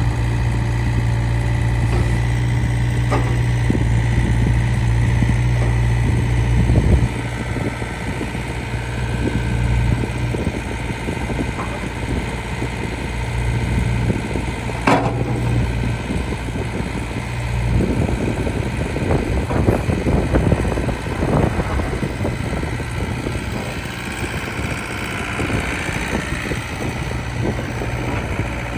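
Case CX60C mini excavator's diesel engine running steadily. Its deepest hum drops away about seven seconds in. A sharp knock comes around the middle, and a run of clanks and rattles follows later on.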